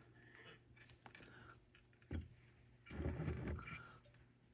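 Quiet bench work on a circuit board: scattered light clicks and taps of parts and tools being handled, a soft thump about two seconds in, and a short low rushing noise around three seconds in.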